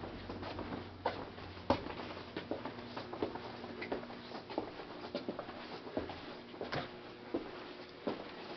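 Footsteps and small knocks on a hard floor in an empty room, an irregular run of sharp clicks over a faint steady hum.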